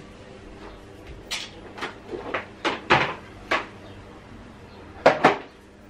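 Knocks and clatter of a floor mop bumping against the legs of a child's table and chairs: a run of sharp knocks, then two close together near the end.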